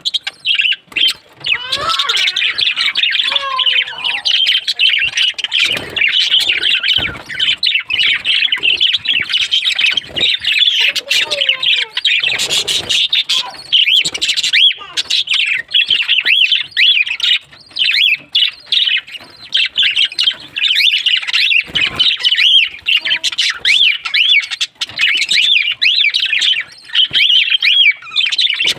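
A flock of small birds chirping and chattering continuously, many calls overlapping, with scattered short clicks and an occasional lower squawk.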